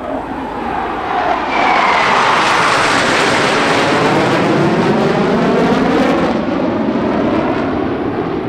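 A formation of T-50B Golden Eagle jets, each powered by a single F404 turbofan, passing overhead. The loud jet noise builds over the first two seconds, sweeps and phases as the formation goes by, and eases off after about six seconds.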